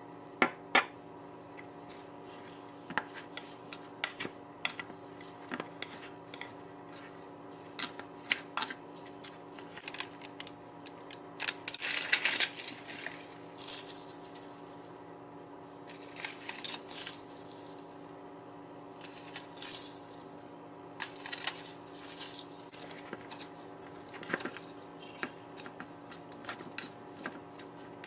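Utensils clinking and scraping against a rice cooker's inner pot as food is stirred and scooped: many short, irregular clicks, with a steady hum underneath. A louder rustling stretch comes about twelve seconds in.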